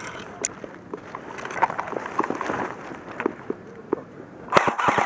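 Scattered sharp clicks and snaps of airsoft fire and BB hits, then, near the end, an airsoft electric gun opens up on full auto: a fast, even rattle of shots.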